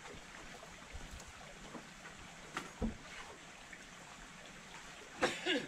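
Pot of water boiling over a wood fire, a steady watery bubbling, with a few soft knocks as pieces of ginger are dropped in. Near the end comes a short pitched sound, like a brief voice.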